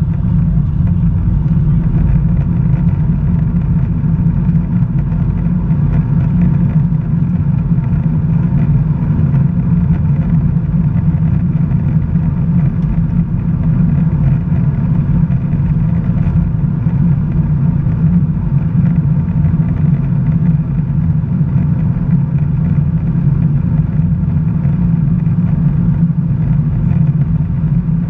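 Cabin noise inside a Boeing 737-800 rolling out after landing: a steady low rumble from the wheels on the runway and the CFM56-7B engines, with faint steady whining tones above it.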